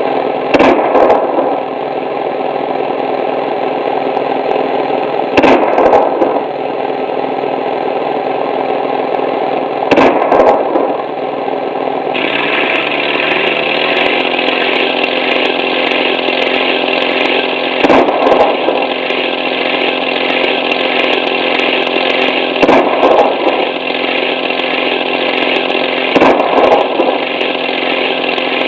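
An engine running steadily, with a short loud burst every few seconds. About twelve seconds in, its note steps up and turns harsher.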